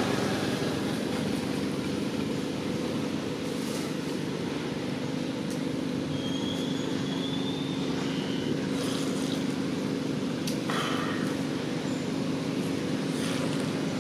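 Steady running hum of an engine, holding one low tone. A short thin whistle sounds about six seconds in.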